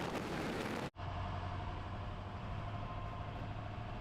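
Pickup truck on the move: steady road and wind noise. About a second in it cuts off abruptly and gives way to a steadier low engine hum.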